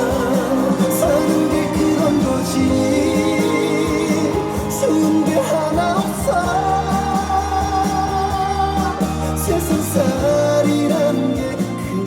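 Pop music with a singing voice over a band, at a steady loud level, dropping a little near the end.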